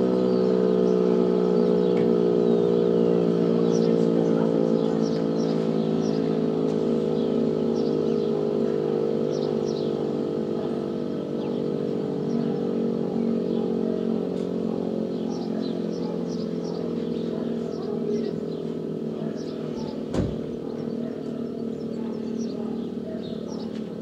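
Electromechanical rotor siren winding down after its test signal: a chord of tones slowly sinking in pitch and fading as the rotor coasts to a stop. Birds chirp throughout, and there is a single thump near the end.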